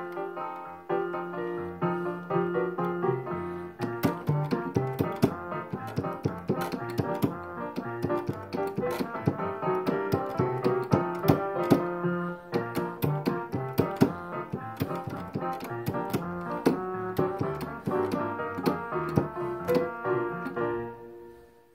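Electronic keyboard with a piano sound playing the accompaniment part of a trombone solo piece, busy with quick repeated notes. It starts suddenly and dies away near the end.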